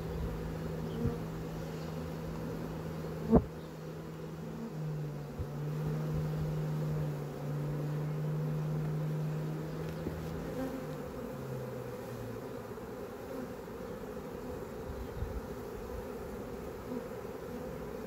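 A swarm of honeybees buzzing steadily as they fly around and crawl into a swarm box, with a low hum that shifts pitch a couple of times. A single sharp knock comes about three and a half seconds in.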